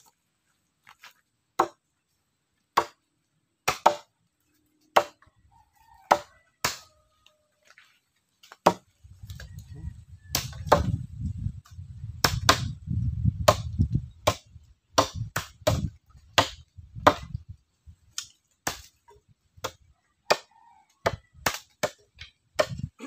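Sharp chopping strikes at irregular intervals, about one a second at first and coming faster, around two a second, in the later part, with a low rumble beneath them through the middle.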